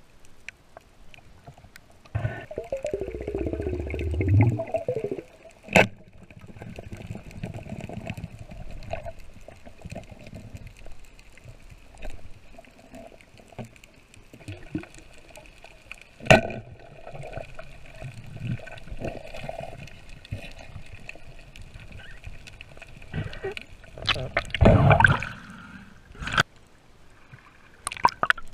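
Underwater sound heard through a camera's waterproof housing: water moving and gurgling, with a few sharp clicks and a louder rush of water near the end.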